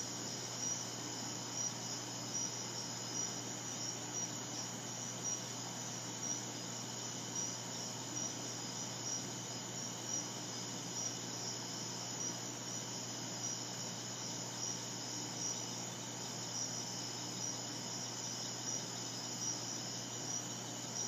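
Night insects, crickets, chirping steadily in a high-pitched, pulsing chorus that swells about once a second, over a faint steady low hum.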